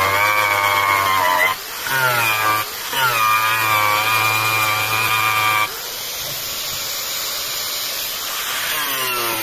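Electric angle grinder running against a wooden slab, its motor whine dipping in pitch twice as the disc bears into the wood. About halfway through the whine drops out, leaving a rougher, hissing abrasion sound.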